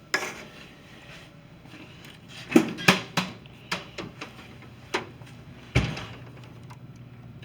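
A string of sharp metal clicks and clunks, about eight of them, from a soda vending machine being opened up to get at its cash, with the loudest knocks just after the start and a little before the end.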